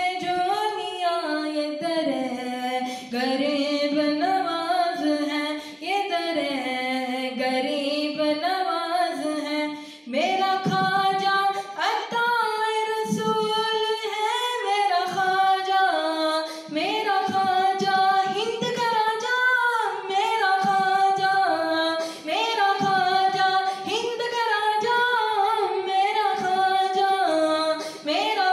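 A young man singing a manqabat, an Urdu devotional song, solo and unaccompanied, in long ornamented phrases that glide between notes. There is a brief pause for breath about ten seconds in.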